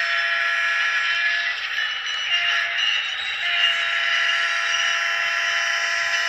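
Model diesel locomotive's LokSound sound decoder playing diesel engine sound through its small onboard speaker as the train rolls by: a steady hiss with several held, whining tones, one of which drops out for a moment around two to three seconds in.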